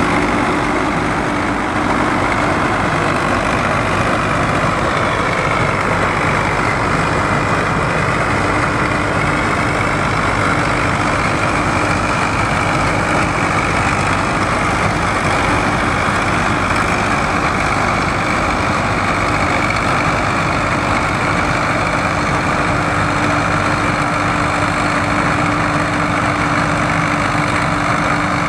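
Claas Columbus combine harvester working in oats, its Zetor 4701 four-cylinder diesel engine running steadily under load together with the threshing machinery, with a constant whine over the engine.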